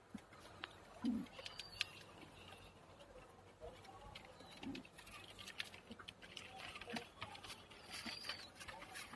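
Domestic pigeons moving about in wooden loft nest boxes: faint scratching, pattering and light knocks of feet on boards and nesting straw, with a couple of short low coos, about a second in and near five seconds.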